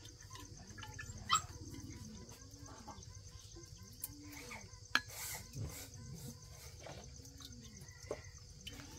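Faint low animal calls: a soft rising-and-falling call repeated about once a second, over a steady high hiss, with a couple of sharp clicks.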